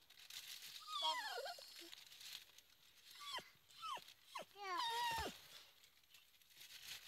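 A dog whining and yelping: a series of short cries that fall in pitch, several in quick succession in the middle, the last one drawn out.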